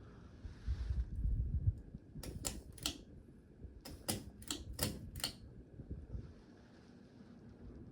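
A low rumble, then about nine sharp clicks in irregular pairs and clusters over roughly three seconds, over a faint steady background hum.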